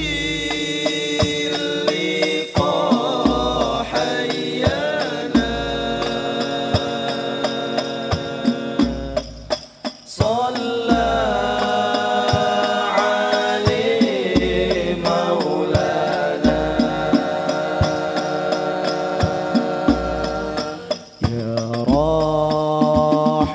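Male voices singing an Islamic sholawat devotional song into microphones, accompanied by banjari frame drums (rebana) struck by hand in a steady rhythm with deep bass thumps. The singing pauses briefly twice, about ten seconds in and near the end.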